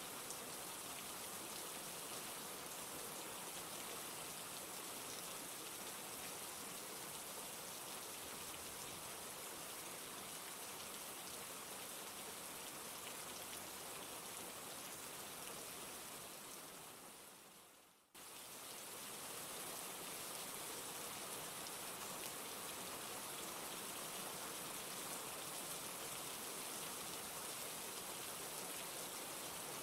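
Steady rain with a dense patter of drops. About two-thirds of the way through it fades away over a couple of seconds, then cuts straight back in at full level.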